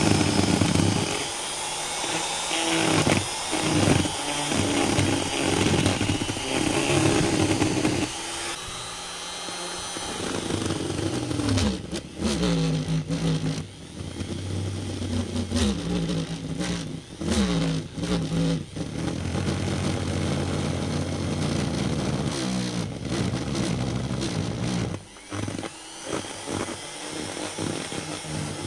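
Lidl straight grinder with a rotary burr carving olive wood, its motor pitch sagging and recovering as the burr bites in and eases off. It drops away briefly a few times where the burr leaves the wood.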